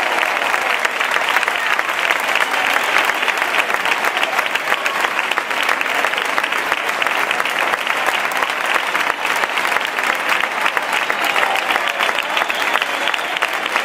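Crowd applauding steadily and at length, a dense patter of many hands clapping.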